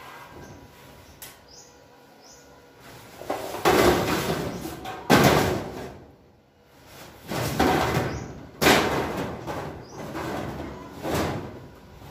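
Corrugated metal roof sheeting and steel framing rumbling and banging in repeated bursts of a second or two, some starting with a sudden bang.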